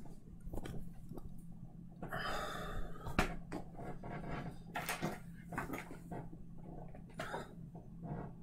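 Handling sounds of a Surface Pro 4 tablet and its keyboard cover being moved and set up on a desk: scattered knocks and taps, with a brief rustle a couple of seconds in, over a low steady hum.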